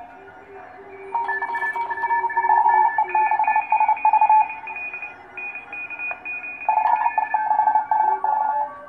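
Trixie 2 homebrew direct-conversion receiver on the 40-metre amateur band, heard through a loudspeaker. Several Morse code (CW) signals come through as whistling tones at different pitches, each keyed on and off, over a faint hiss. The tones get louder about a second in.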